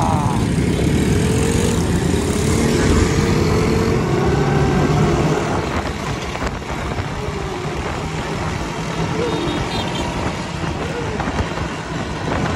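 Small motorcycle's engine running as the bike is ridden, with a steady low rumble; it is a little quieter after about five seconds.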